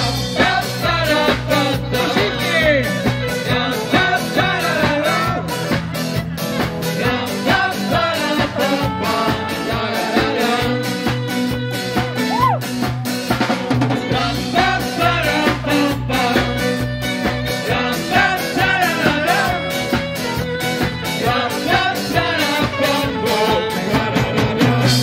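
Live band playing an upbeat song with a steady beat: drum kit, electric guitar, violin and saxophone over a bass line. The music stops at the very end.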